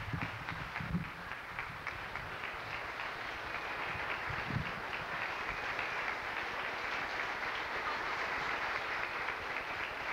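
Large audience applauding, many hands clapping at once, swelling a little after the first couple of seconds.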